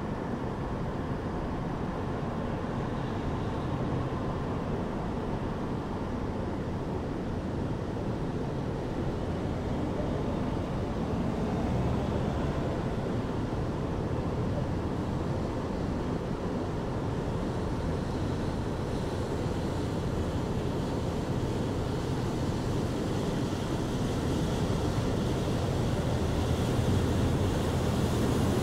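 Steady low rumble of distant city traffic, growing a little louder near the end.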